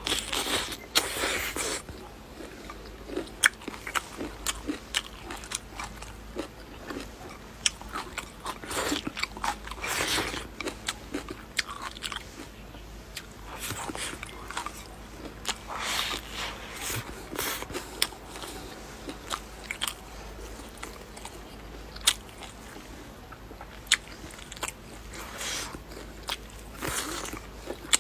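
A person biting and chewing crunchy food close to the microphone, with bursts of crunching every few seconds and scattered sharp clicks in between.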